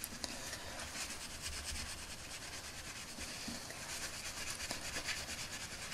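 Cotton bud rubbing and scraping over a small plastic toy hat, working off paint softened in brake fluid: a faint, continuous scratchy rubbing.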